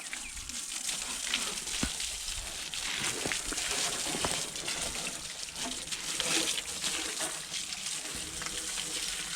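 Water from a solar-powered pump gushing steadily out of the outlet and splashing, a continuous hiss with many small crackles.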